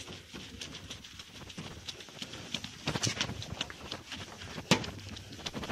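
A scouring pad scrubbing a plastic headlamp lens coated in wet toothpaste and baking-soda paste: irregular rubbing strokes with scattered ticks, and a sharp knock about three-quarters of the way through.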